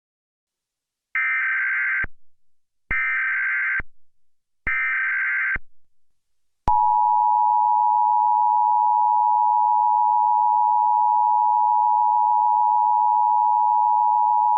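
Emergency Alert System tones. First come three bursts of screeching digital data tones (the SAME header), each about a second long. A few seconds in, the steady two-tone EAS attention signal starts and holds unbroken, the alarm that precedes a spoken alert.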